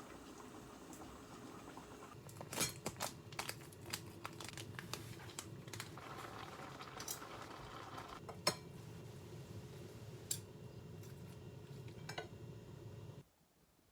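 Scattered light clicks and clinks of small objects being handled, over a steady low room hum. The sound cuts off suddenly near the end.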